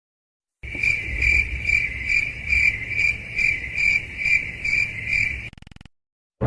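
Stock cricket-chirping sound effect: a steady high trill that pulses about two and a half times a second over a low rumble, cutting off abruptly near the end.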